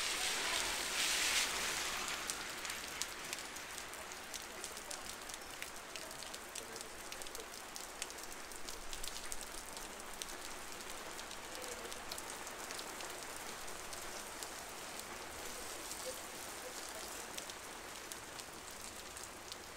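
Heavy rain pouring onto a street: a steady hiss thick with the ticks of individual drops. It is louder for a moment about a second in, then settles.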